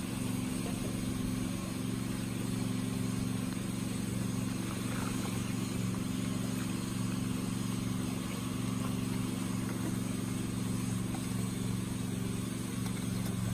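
A steady low mechanical hum, like a motor running continuously, over an even wash of water noise from a crowd of koi churning the pond surface.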